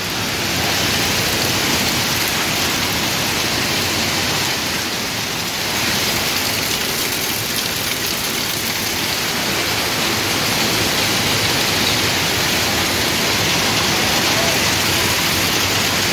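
Quartz sand sorting machinery running: a steady, even hiss like streaming sand or rain, with no distinct knocks or tones.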